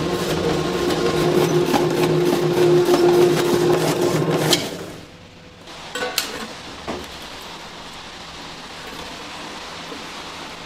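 Electric vegetable slicer motor running steadily as it slices onions, then switching off with a click a little before halfway. A couple of metal clanks follow from a stainless steel pan being handled.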